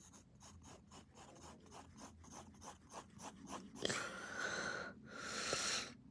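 Graphite pencil scratching on lined notebook paper in quick, short back-and-forth shading strokes, about five a second, then a sharp tick and two longer, louder scratchy sweeps near the end.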